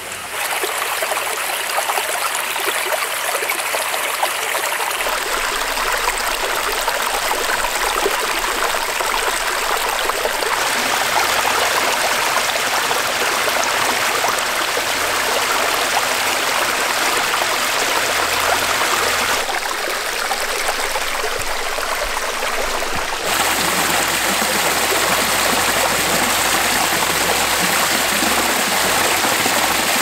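Mountain stream running over rocks and spilling down small cascades: a steady rush of water. Its tone shifts abruptly about four times as one stretch of stream gives way to another.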